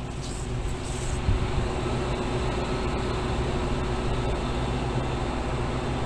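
Carrier AquaSnap air-cooled chiller running with a steady mechanical hum, a low drone with a faint steady tone in it.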